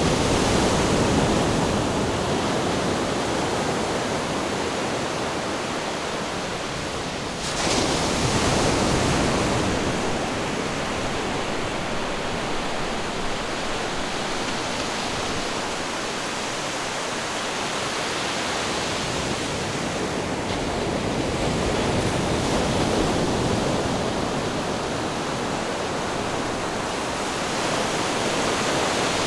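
Ocean surf washing onto a beach: a continuous rush of waves that swells and eases, with a wave breaking suddenly about seven and a half seconds in.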